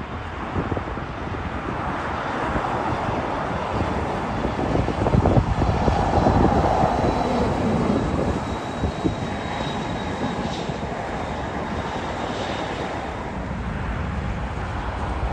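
Jet engine noise from a business jet rolling out along the runway after landing: a steady rush with a faint high whine, swelling a little midway. Wind buffets the microphone.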